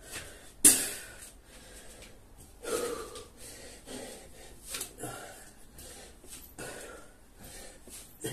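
A man breathing hard and exhaling forcefully about every two seconds, five times, the strongest about a second in. This is the rhythm of kettlebell swings with a 53 lb kettlebell, done straight after a set of burpees.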